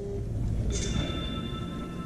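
Background music: a note held steadily from about two-thirds of a second in, over a low hum.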